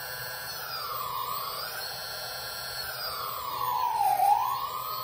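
GoPro Karma quadcopter's electric motors and propellers spinning with a steady whine that dips in pitch and climbs back twice as the throttle stick is worked, briefly about a second in and more deeply about four seconds in, loudest at the second dip.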